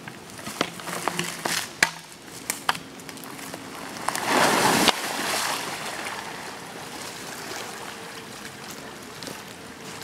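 A pine log being levered with a cant hook, with a few sharp knocks, then rolling off the bank into a creek: a loud splash about four seconds in, lasting about a second. Water sloshes and settles afterwards.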